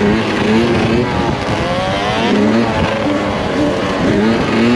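Yamaha YZ125 two-stroke dirt bike engine revving up and dropping back several times, its pitch climbing and falling about every second or two as it is ridden.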